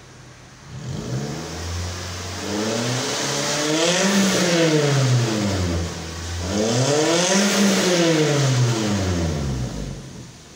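Suzuki Swift engine idling, then revved up and let fall twice through an aftermarket NDK DK-01 V2 stainless-steel muffler, with stock header and resonator, giving a dry exhaust note.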